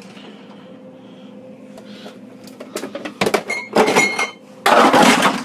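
Bottles and jars falling out of an open refrigerator door and smashing on a wooden floor. A few sharp knocks come about three seconds in, then a loud crash of breaking glass near the end, over a low steady hum.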